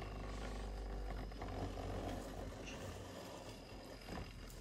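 Takara Tomy B-185 Vanish Fafnir, a left-spinning Beyblade, spinning on a plastic stadium floor with a low steady hum that slowly fades as the top loses speed.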